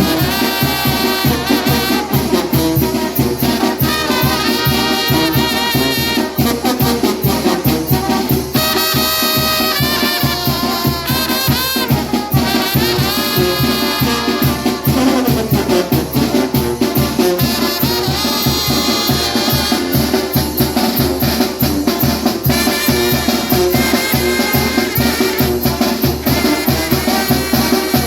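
Salsa music with a lead trumpet playing melodic lines over brass and a steady Latin percussion beat.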